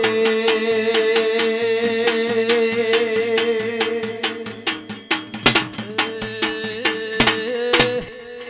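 Folk hand drum played in a fast, even rhythm of about four strokes a second over a steady held tone. About five seconds in, the even beat breaks into a few louder single strokes, and the music fades near the end.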